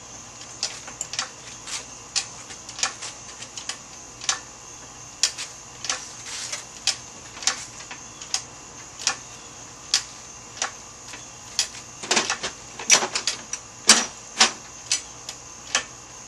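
Hydraulic engine hoist being pumped to raise an engine: a run of sharp metallic clicks, roughly two a second, with a burst of louder clicks a little past the middle.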